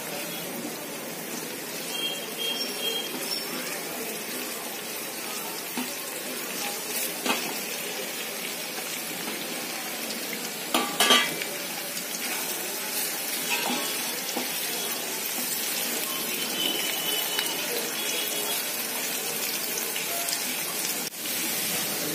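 Sliced onions sizzling steadily in hot oil in a nonstick frying pan as they brown, being stirred, with a few sharp clicks, the loudest about eleven seconds in.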